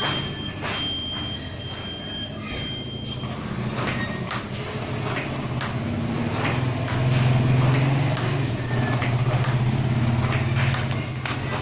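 Table tennis ball-throwing robot running: a steady motor hum, louder for a moment around the middle, under a string of sharp clicks as ping-pong balls are fired and bounce on the table. A high electronic beep sounds on and off during the first three seconds.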